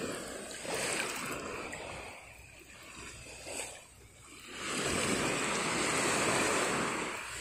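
Shallow sea water washing and lapping, swelling to a louder surge about two-thirds of the way through and easing off near the end.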